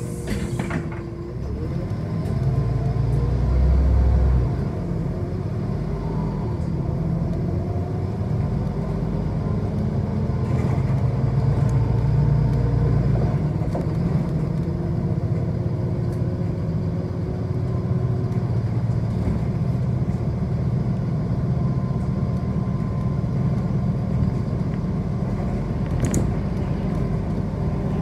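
City bus running, heard from inside the cabin: a steady low rumble of engine and road. A whine rises a couple of seconds in and then holds steady.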